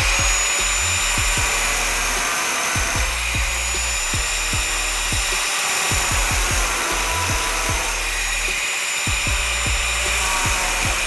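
Angle grinder with a thin cutting disc cutting into sheet steel, running at a steady high whine with the grating noise of the disc biting the metal.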